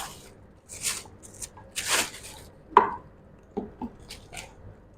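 Rustling of plastic packaging as a new handbag is handled and searched, with a sharp click near the middle and a few lighter taps later.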